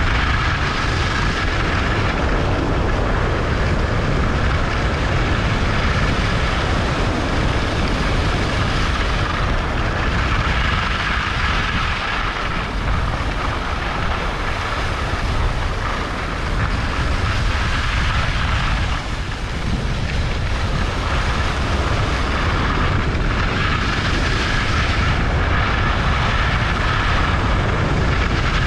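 Wind rushing over the microphone of a skier moving downhill, with the steady hiss of skis sliding over snow.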